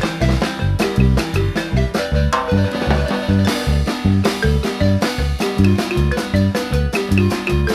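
Guatemalan marimba ensemble playing an upbeat dance tune: marimba melody over a steady, bouncing bass line with drum kit.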